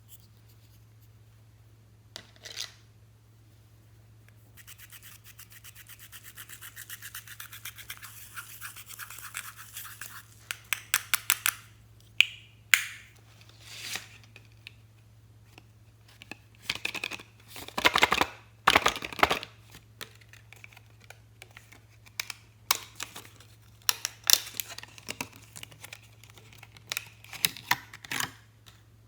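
Slime being squished and stretched by hand: a fast run of tiny crackling clicks builds for several seconds, then gives way to scattered sharp pops and squelches.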